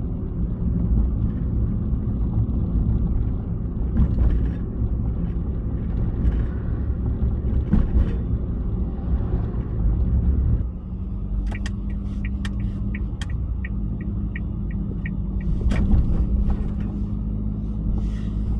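Low, uneven rumble inside a Suzuki Solio's cabin. It eases about ten seconds in, where a steady low hum takes over, with a few seconds of quick, evenly spaced ticks, about three a second.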